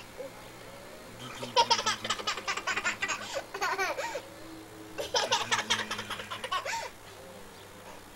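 A toddler laughing in two bouts of quick, rhythmic giggles, one starting about a second and a half in and the other about five seconds in.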